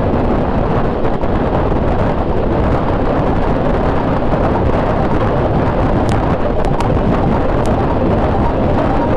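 Steady wind noise buffeting the microphone while riding a motor scooter, with the scooter's running and road noise mixed in.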